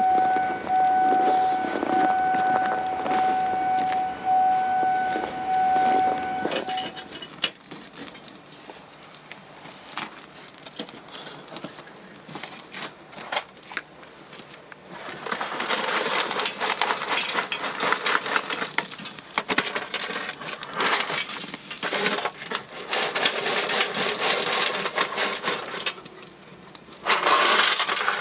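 A steady siren tone with an overtone holds for about the first six seconds, then stops. Scattered knocks and clatter follow, then a long noisy stretch of handling. Near the end coal is tipped from a wire basket into a coal stove, rattling loudly.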